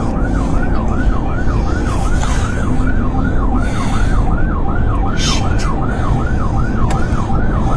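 Police car siren in fast yelp mode, its pitch sweeping up and down about two to three times a second, over the steady rumble of a speeding vehicle.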